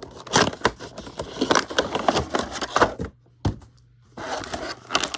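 Cardboard and plastic toy packaging being handled and opened, with a quick run of irregular clicks, scrapes and crinkles. It pauses for about a second just after the middle, then resumes.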